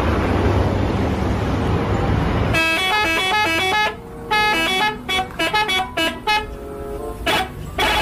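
A bus driving past with a steady engine and road rumble, then, about two and a half seconds in, a multi-tone musical horn tooting quick runs of stepped notes, three bursts with short breaks between them.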